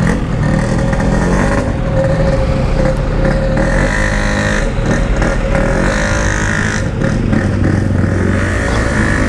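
Yamaha RX-King's 135cc single-cylinder two-stroke engine running under a rider through a stock-style steel exhaust, held at fairly steady revs, with the revs beginning to climb near the end.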